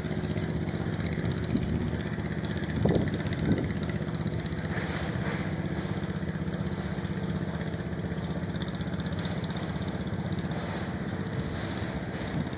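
Engine of a small tugboat towing a barge, running steadily with an even, fast pulse, with two brief knocks about three seconds in.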